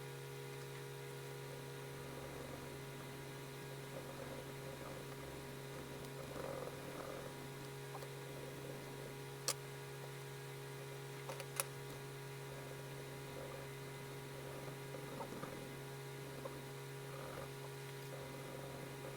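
Faint pencil scratching and colouring strokes on paper in irregular patches over a steady electrical hum, with two sharp clicks about a couple of seconds apart midway through.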